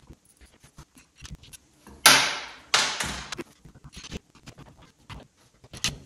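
Handling noise from working on a ceiling lamp fitting: scattered small clicks and knocks, with two louder rustling clatters about two and three seconds in.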